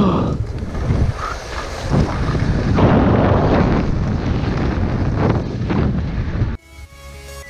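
Skis running fast over a groomed piste, with wind rushing over the microphone and the snow hissing and scraping in repeated swells as the skier turns. Electronic music cuts in suddenly near the end.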